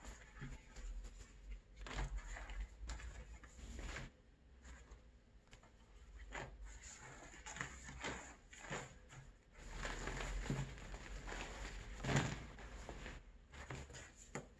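Glazed crocodile leather hides being handled and shuffled in a pile: irregular rustling and flapping of the stiff skins, with soft knocks as pieces are lifted and dropped, the loudest knock about twelve seconds in.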